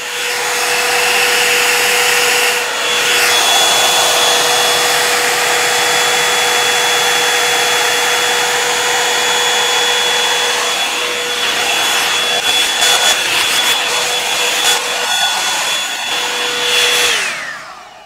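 Revlon One-Step paddle-brush hair dryer and styler running on hair: a steady rush of blown air with a motor whine. It switches off near the end and the whine falls away as the motor spins down.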